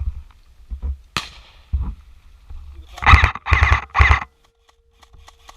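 A single sharp crack about a second in, then three loud wavering cries in quick succession, a person yelling during an airsoft game.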